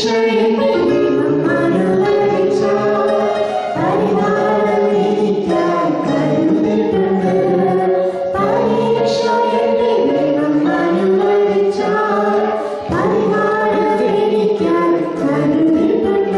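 A woman and a man singing a Christian song together into microphones, in held phrases with short breaks between lines.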